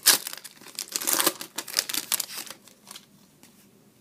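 Foil wrapper of a hockey card pack crinkling and tearing as it is opened, with cards riffling in a quick run of crackly rustles that is loudest at the start and stops about three seconds in.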